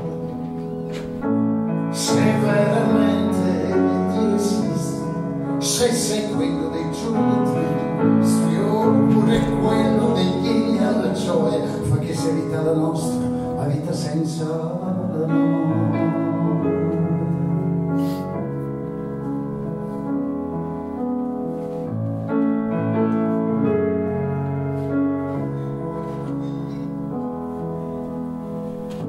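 Live band playing a song on piano, guitar, double bass and drums, with a man singing into the microphone and cymbal strokes now and then.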